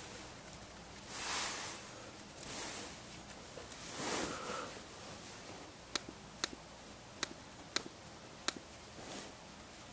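Five sharp clicks of a laptop trackpad, about one every half to three-quarters of a second, while a drop-down menu is worked, after a few soft rustling swells in the first half.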